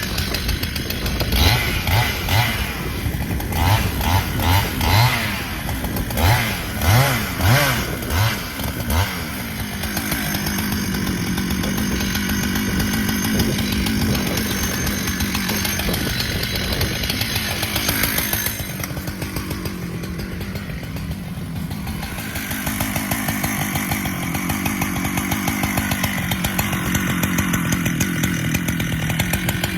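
Husqvarna chainsaw revved in short repeated bursts for several seconds, then held at steady high revs, easing briefly about two-thirds of the way through before running steady again.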